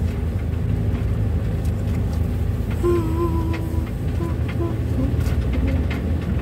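Engine and road rumble heard from inside a van's cabin on a rough road, with scattered light rattles and knocks. About three seconds in, a faint wavering tone comes and goes for a second or two.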